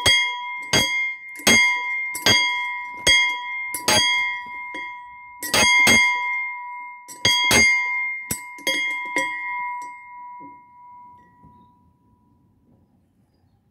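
A metal object ringing like a bell as it is struck about a dozen times, roughly once a second with a short pause midway. It then rings on and fades away near the end.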